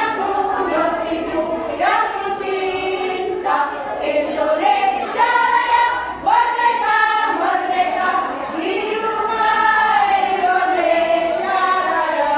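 Women's choir singing together, with long held notes.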